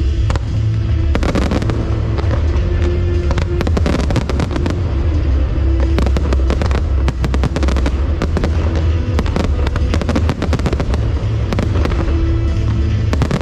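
Fireworks display: a dense volley of sharp bursts and crackling reports, many going off in quick succession over a steady low rumble.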